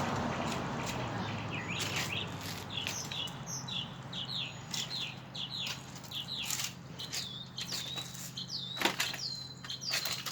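A small bird chirping over and over, short hooked calls that dip and rise, with a steady low hum and a few sharp knocks underneath.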